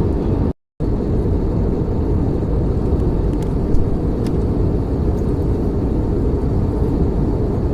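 Steady, loud rushing cabin noise of an airliner in flight, from the jet engines and the air streaming over the fuselage, mostly deep in tone. It cuts out completely for a moment about half a second in.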